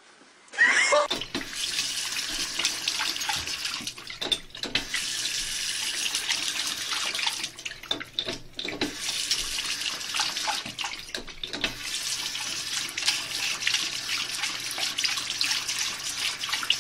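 Water running from a bathroom sink tap and splashing into the basin, a steady rushing hiss. The flow dips briefly twice.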